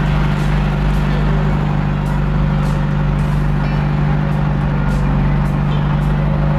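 Engine of a kempang ferry boat running steadily under way, a loud, even drone.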